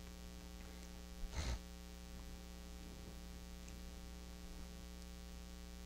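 Steady low electrical mains hum with a faint hiss, broken once about a second and a half in by a brief, short noise.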